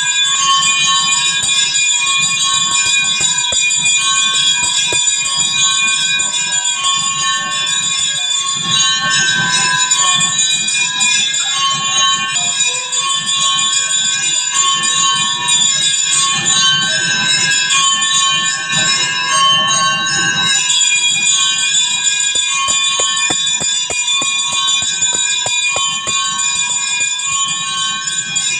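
Temple bells ringing continuously in a dense, steady jangle, with a softer low pulsing underneath.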